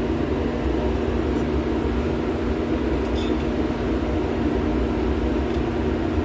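Steady machinery hum with a constant low tone, and one faint light click about three seconds in.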